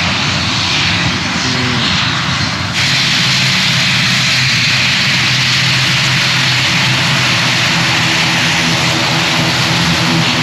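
Twin-engine turboprop airliner's engines running at the end of the runway: a steady low drone under a loud, even rush of noise, which steps up a little under three seconds in.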